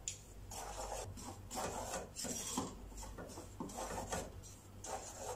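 Wooden spatula scraping and stirring dry flour and milk powder in a pot, a rasping stroke about twice a second. The flour is toasting over a low flame and is kept moving without stopping so it reddens without burning.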